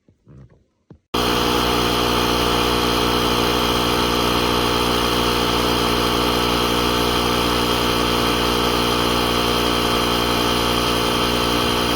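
Small piston air compressor built into the VTOMAN X7 jump starter running steadily. It switches on abruptly about a second in and holds a constant, loud mechanical hum with a hiss over it.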